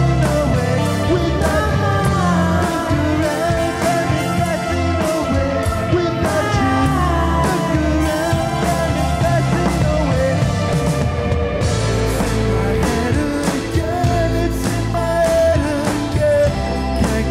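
Live rock band playing a song: electric guitar, electric bass and drum kit, with sung vocals.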